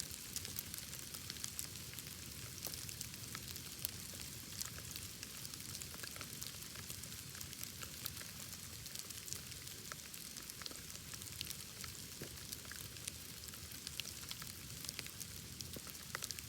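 Wood bonfire crackling steadily, with many small sharp pops and a low rush of flame underneath.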